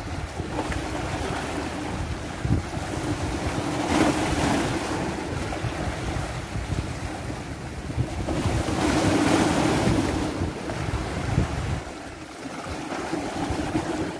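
Small sea waves washing and splashing against the rocks of a breakwater, surging about four seconds in and again past the middle. Wind rumbles on the microphone throughout.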